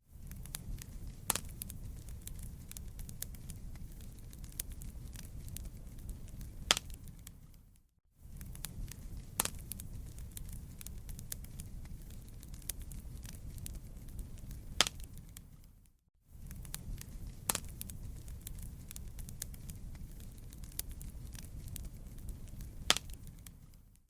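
Wood fire burning: a steady low rumble with scattered sharp crackles and pops. The sound cuts out briefly twice, about eight seconds apart, and the same pops come back each time, as a short recording played on a loop.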